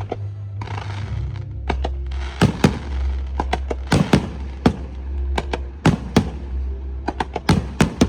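Fireworks bursting in a quick, irregular string of sharp bangs, with a hiss about a second in, over background music with a steady low bass.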